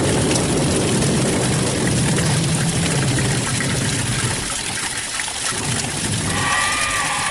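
Steady rushing, water-like noise with a low rumble that fades out about halfway through; a faint wavering high tone comes in near the end.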